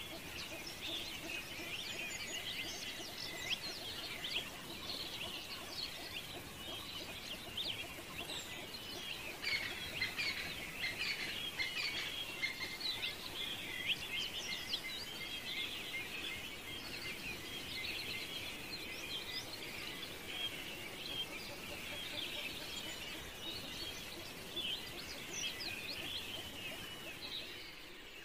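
Small birds chirping in a dense, continuous chatter.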